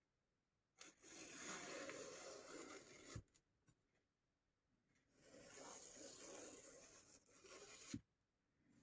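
Two long, quiet rubbing or scraping strokes, each about two to three seconds long, with a soft knock at the end of each.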